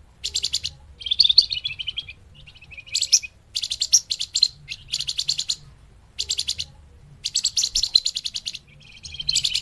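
Bird lure recording of a small songbird known to Indonesian keepers as 'flamboyan', giving repeated bursts of fast, high, thin trills, each lasting under a second, with a few lower chattering phrases between them.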